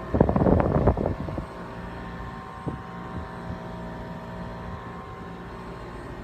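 Outdoor unit of an LG Libero E+ 8,500 BTU inverter air conditioner running with a steady, many-toned hum, the loud outdoor noise its owner complains of. Near the start a loud burst of rattling clatter lasts about a second, followed by a couple of faint ticks.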